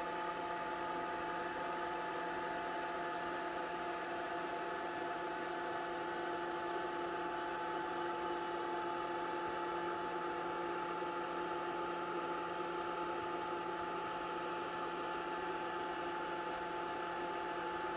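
Steady electrical hum: several constant tones over an even hiss, unchanging throughout.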